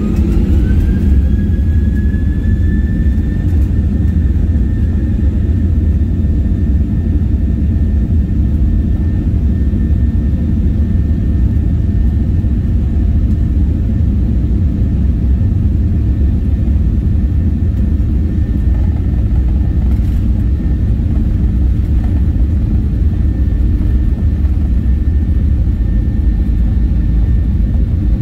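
Boeing 737-800's CFM56-7B turbofan engines heard from inside the cabin over the wing, spooling up to takeoff thrust. A whining tone rises over the first few seconds and then holds steady above a loud, steady low rumble of the takeoff roll.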